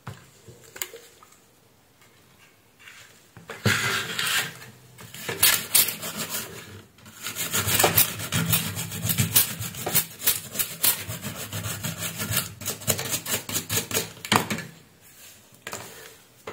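A brush scrubbing the solder side of a circuit board, clearing away solder debris around freshly desoldered IC pads. It is a fast scratchy rubbing made of many quick strokes, starting about three and a half seconds in, pausing briefly near seven seconds, and stopping about fifteen seconds in.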